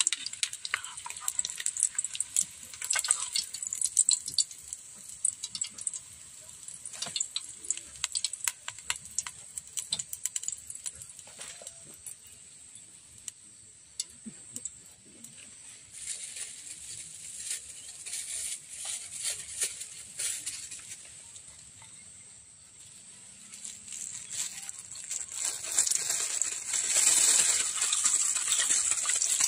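A metal spoon and an aluminium camping pot clinking and rattling in scattered clicks. About 25 seconds in, water splashes out as the pot is drained through its pressed-on lid.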